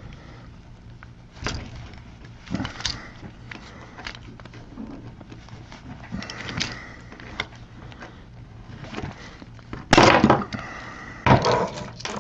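Sharp clicks and cracking snaps from rivets being set into the sides of a plastic light switch. A louder burst of clattering and cracking comes about ten seconds in.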